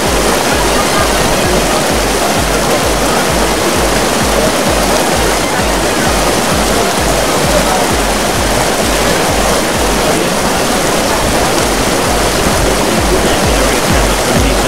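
Fast-flowing floodwater rushing through a street, a loud continuous rushing noise, under music with a steady bass beat of about two beats a second.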